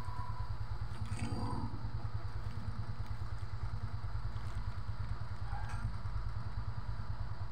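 Two electric stand fans running: a steady low hum with a fast, even flutter.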